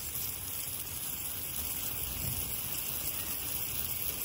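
Water spraying from a garden hose in a steady hiss, the spray splashing down onto straw-covered ground.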